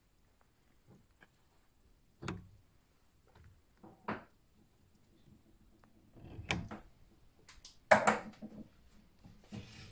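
Scattered knocks, thumps and rustling. A few isolated knocks come first, they get busier from about six seconds in, and the loudest thump is about eight seconds in.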